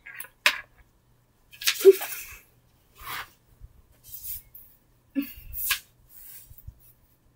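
A person making short, breathy, hissing noises with the mouth, about half a dozen in a row; the loudest comes about two seconds in.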